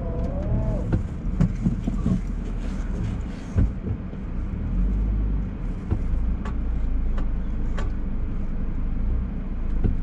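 A car on the move: a steady low rumble of engine and road, with a few sharp knocks and rattles scattered through it.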